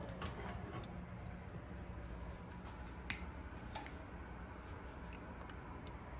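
Popcorn kernels popping sparsely: a handful of isolated sharp pops, the two loudest about three seconds in, over a low steady hum.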